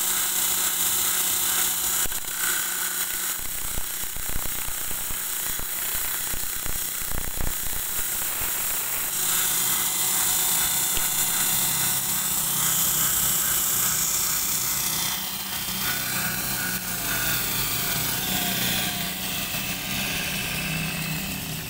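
Electric belt grinder running, its abrasive belt grinding a steel knife blade with a steady hiss; around nine seconds in the grinding stops and the belt and motor run on freely with a lower hum.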